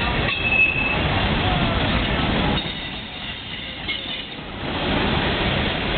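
Union Pacific freight train's tank cars and boxcars rolling past at trackside, a steady rumble of wheels on rail. About half a second in there is a brief high squeal, and the rumble dips quieter for about two seconds in the middle.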